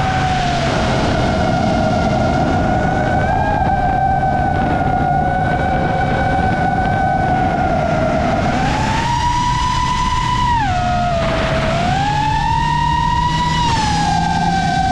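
FPV drone's motors and propellers whining as it flies, the pitch holding steady and then rising and falling with the throttle: up about halfway through, a sharp drop, up again and down near the end.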